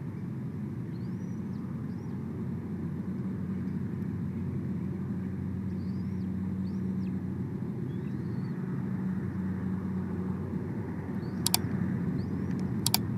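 A steady low engine drone that slowly grows louder. Small birds give faint short chirps every second or two, and two sharp clicks come near the end.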